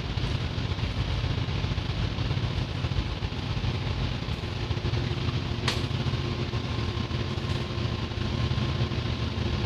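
Steady low drone of running machinery filling a loud engine workshop, with one sharp click a little past halfway through.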